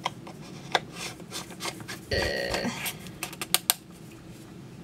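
Plastic sections of a portable hand-pump espresso maker being twisted shut: the threads rub with a short creak about two seconds in, and there are several sharp clicks.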